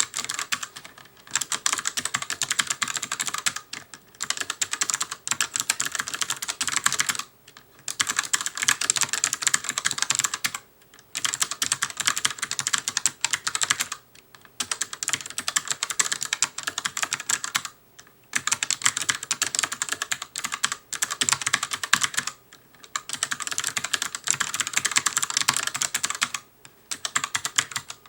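Fast touch-typing on an ELECOM TK-ARMA50BK low-profile mechanical keyboard with ELECOM's own clicky switches: rapid runs of sharp key clicks lasting a few seconds each, broken by short pauses.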